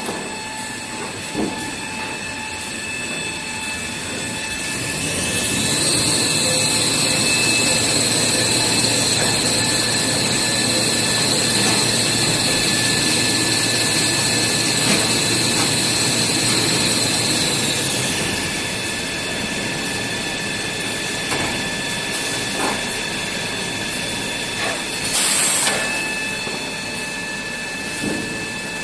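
Toilet paper rewinding and gluing-lamination line running, with a steady machine hum and several high steady tones. A high whine rises in after about five seconds, holds, and dies away past the halfway point; near the end comes a short, sharp hiss.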